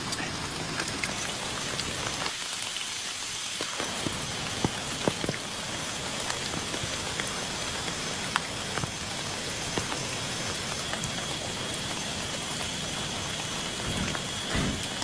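Heavy rain falling steadily, with many individual drops striking sharply, plus a brief low rumble near the end.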